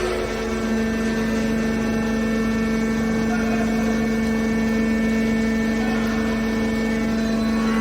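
Hydraulic baler's electric motor and hydraulic pump running, a steady mechanical hum with one strong tone and its overtones that firms up slightly about a second in.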